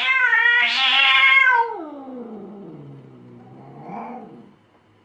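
A cat yowling: one long drawn-out call that falls in pitch toward its end, then a shorter call about four seconds in.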